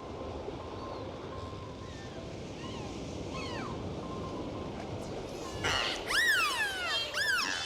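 Dolphin whistles over a steady wash of water. Faint gliding whistles at first, then, from about five and a half seconds in, loud whistles that rise and fall in pitch in quick arches, several in a row.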